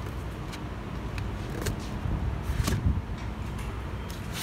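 A few light knocks and rubs from handling the cardboard boxes and steel frame of a motorcycle shipping crate, over a steady low rumble.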